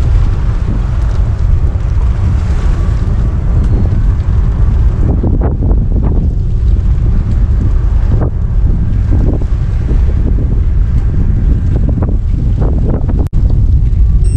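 Heavy wind buffeting the microphone while riding at speed: a constant loud low rumble with irregular gusts. It cuts out for an instant about 13 seconds in.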